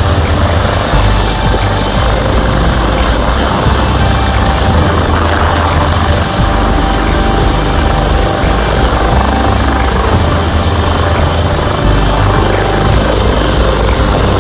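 Helicopter running steadily: a loud, rapid rotor-blade chop over engine noise, with a constant high-pitched whine.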